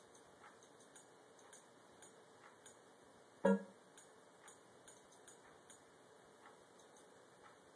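Faint PlayStation 3 XMB menu navigation ticks, one soft click for each step of the cursor, coming irregularly every third to half second as the game list is scrolled. A single louder, short pitched tone cuts in about three and a half seconds in.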